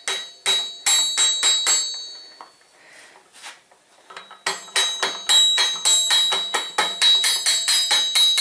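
Plastic-faced mallet tapping repeatedly on a steel connecting rod and cap being fitted to a VW stroker crankshaft, each blow leaving a high metallic ring. A quick run of blows at first, a pause, then steady tapping about four times a second.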